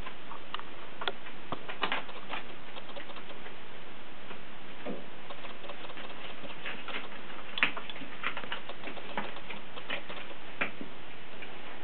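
Kittens playing on paper and a cardboard box: an irregular scatter of small clicks, taps and scratches from their paws and claws on paper and cardboard, with one sharper tap about seven and a half seconds in, over a steady hiss.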